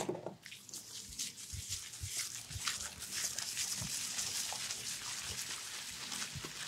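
Hands lathering shampoo into wet hair and scrubbing the scalp: a steady wet, scratchy squishing with faint soft taps.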